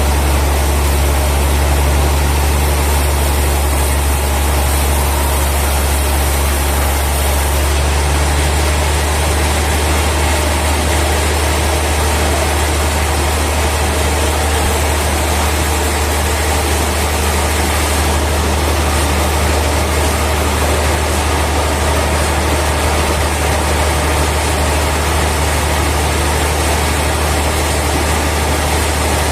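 Heavy sawmill machinery running steadily with a deep, constant hum and a continuous mechanical din; its tone shifts slightly about eight seconds in.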